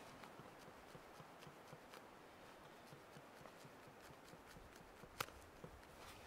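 Near silence: faint, steady forest ambience with scattered small ticks and taps, one sharper click about five seconds in, and a faint low rumble coming in shortly before it.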